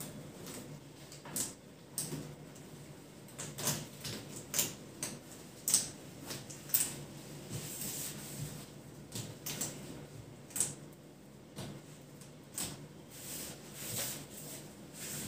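Bed linens being tucked under a mattress by hand: irregular rustles and scrapes of cotton and rubber sheeting being pushed in along the mattress edge.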